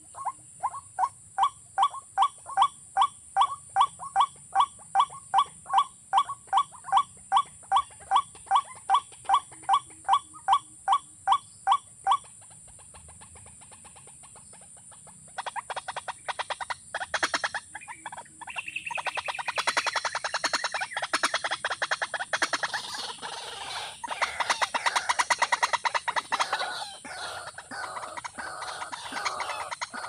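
Watercock calling: a long run of evenly spaced hollow notes, about three a second, that stops about twelve seconds in. After a short pause a faster, denser and louder run of calls follows.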